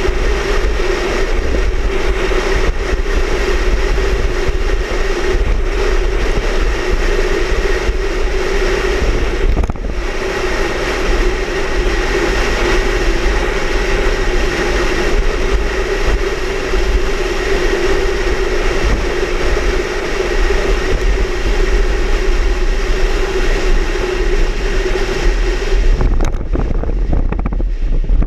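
Loud, steady storm wind rushing and buffeting the microphone with a heavy low rumble, over a steady droning hum. There is a brief dip about ten seconds in, and the high hiss drops away near the end.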